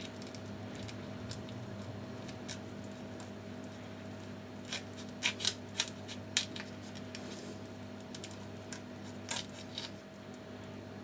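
Knife tip cutting through the shell of a raw tiger prawn on a wooden board, giving a scatter of sharp crackling clicks, most of them a few seconds in and a couple more near the end. A steady low hum runs underneath.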